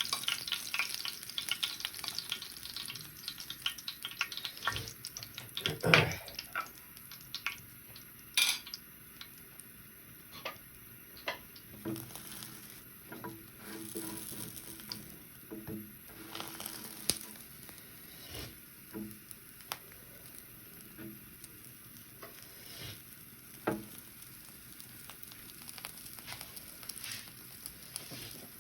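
Food frying in a pan with a crackling sizzle, strongest at the start and thinning out, while a utensil scrapes and taps against the pan. A sharper knock comes about six seconds in.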